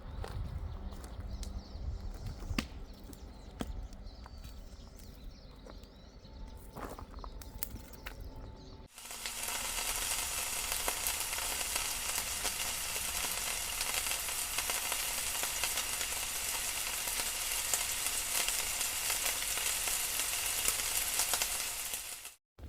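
Food sizzling in a frying pan: a steady high hiss that starts about nine seconds in and cuts off suddenly near the end. Before it, a low rumble with scattered clicks and knocks.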